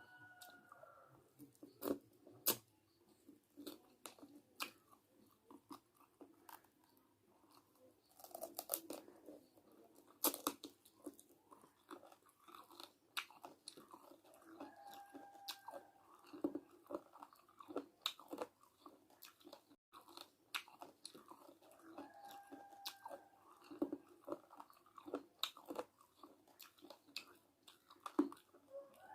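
A person chewing and crunching a mouthful of chicken biryani close to the microphone, with irregular small clicks and crunches throughout.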